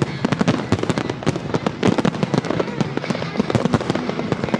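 Aerial fireworks display with many shells bursting in rapid succession: a dense, continuous run of bangs and crackling.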